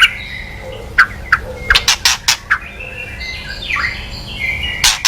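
White-rumped shama (murai batu) giving its kretekan: a string of sharp, cracking clicks followed by short whistled notes and a falling glide, the harsh agitated calls used to provoke other shamas.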